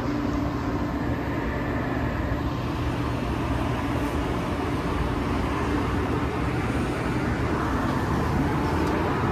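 Steady city street noise: a constant low rumble of traffic with a faint steady hum.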